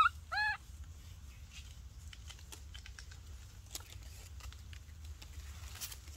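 Baby macaque giving two short squealing cries, each rising then falling in pitch, right at the start, then faint scattered ticking and crackling of dry dirt and leaves as it moves on the mound.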